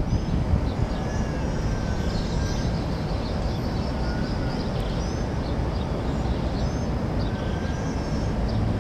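Open-air harbour ambience: a steady low rumble with small birds chirping and whistling on and off over it.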